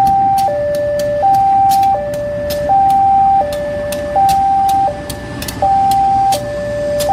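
Railway level-crossing warning alarm sounding its two-tone signal, a higher and a lower tone taking turns about every 0.7 s, as a CC 201 diesel locomotive rolls slowly past on a shunting move, with the low running of its engine and irregular sharp clicks underneath.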